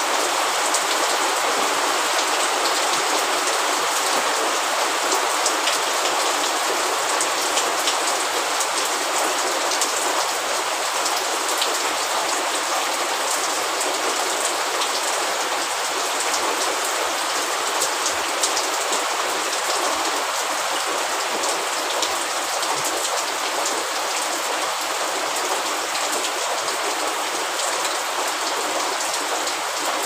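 Steady rain falling, a dense even hiss with scattered sharper ticks of individual drops.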